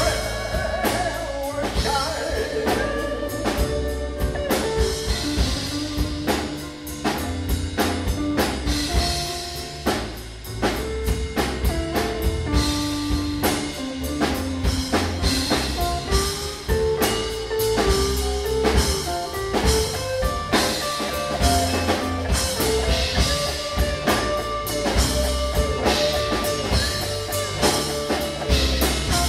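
Live band playing a slow jazz-blues ballad. A drum kit keeps time under a steady bass line, while an electric guitar carries long, held melodic lines.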